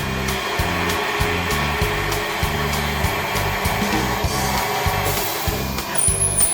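Background music with a stepping bass line, over the steady whir of a thermal friction-drilling machine running.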